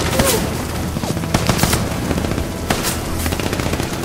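Battle sound effects: dense, continuous rifle and machine-gun fire over a low rumble, with sharper shots standing out about a second and a half in and again near three seconds.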